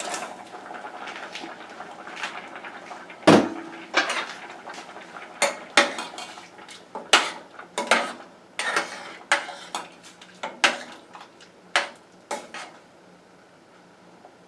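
A utensil clanking and scraping against a cooking pot: about a dozen sharp, irregular knocks and clinks. The loudest comes about three seconds in, and they stop shortly before the end.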